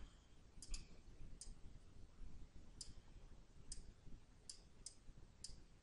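Faint computer mouse clicks, about nine of them at irregular intervals, two in quick succession near the first second.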